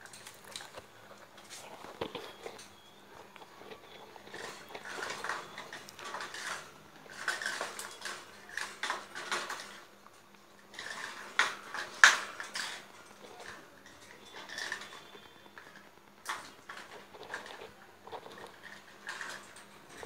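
Young Indian ringneck parakeets moving about on a wire cage top, making irregular clicks, clinks and rattles with their beaks and claws on the metal bars, a plastic bowl and a metal hook. The sharpest clink comes near the middle.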